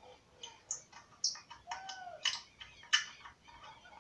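Scattered light clicks and metallic taps from a motorcycle's air filter cover and side panel being worked open by hand, with a short squeaky tone about two seconds in.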